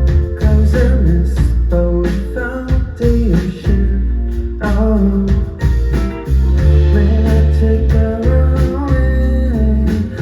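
A band playing a song live: guitar over a heavy bass and a steady drum beat, with a voice singing.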